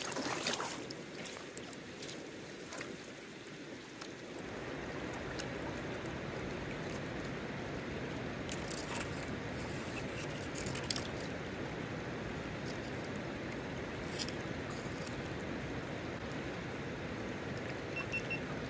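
Shallow river running over a gravel and cobble bed, a steady rush of water, with a few faint clicks about midway through.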